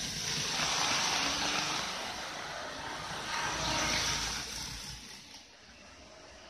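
Model train running along the track: a rushing rattle of wheels with a faint motor whine that swells as it passes close, peaks twice, and dies away about five seconds in.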